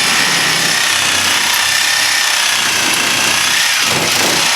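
Reciprocating saw (Sawzall) running steadily, cutting into the steel end plate of an air-conditioner condenser coil. The blade is dull and cutting poorly.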